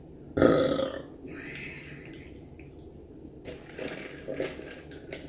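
A man burps once, loudly, about half a second in, followed by a breathy exhale. Later come soft mouth clicks and sips as he drinks from a fountain-drink cup.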